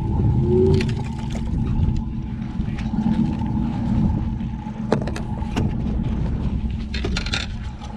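A boat's motor running steadily at low speed, with two sharp knocks about five seconds in.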